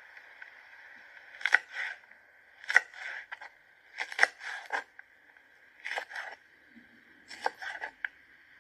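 Kitchen knife slicing green chili peppers on a wooden cutting board: about five short runs of two to four quick cuts, the blade knocking the board, with pauses between runs. A faint steady hiss runs underneath.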